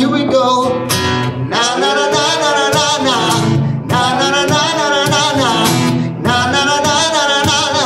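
A man singing three long held phrases with vibrato into a microphone while strumming an acoustic guitar.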